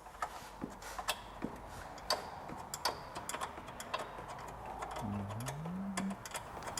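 Scattered light clicks and taps, irregular and fairly faint, of hand tools and metal parts being handled during assembly under a car. About five seconds in, a short pitched hum holds and then rises for about a second.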